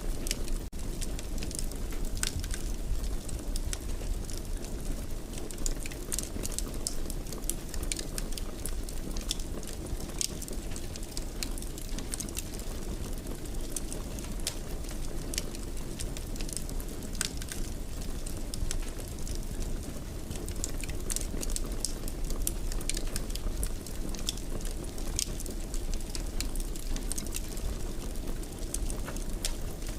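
Fire burning in a fireplace: a steady low rumble of flames with frequent irregular sharp crackles and pops.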